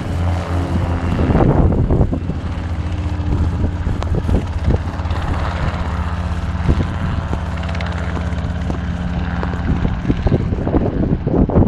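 Light propeller aircraft's engine droning steadily overhead. Wind gusts on the microphone about a second in and again near the end.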